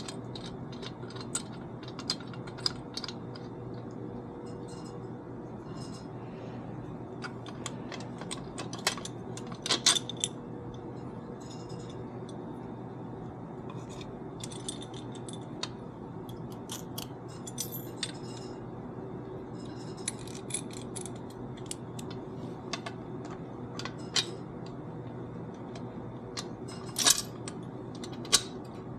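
Small metal hardware (nuts, bolts, washers and vise parts) clicking and clinking now and then as the parts are handled and fitted together, over a steady low background hum. The loudest clinks come about ten seconds in and again near the end.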